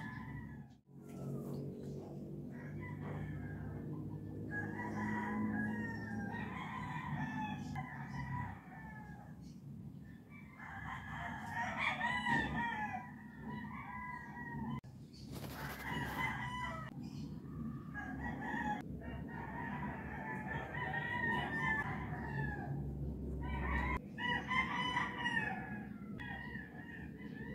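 Rooster crowing again and again, one long crow every few seconds, over a low steady hum.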